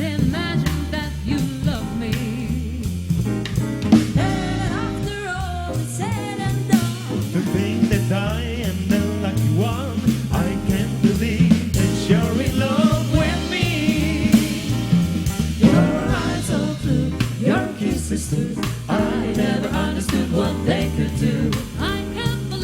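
Live jazz band with a vocal group performing a swing standard: singing over bass and drums, with no lyrics clearly sung in this stretch.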